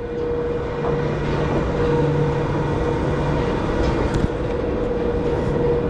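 Roller coaster machinery giving a steady mechanical hum, with a constant mid-pitched tone over it.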